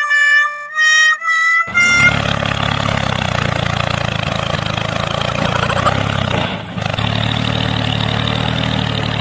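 A short pitched tune climbing in about four steps, then a steady engine-like running sound with a low drone and hiss.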